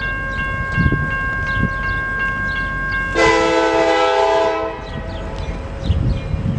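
Train air horn sounding one chord blast of about a second and a half, about three seconds in, over a low rumble. Before the blast, a steady high two-note tone.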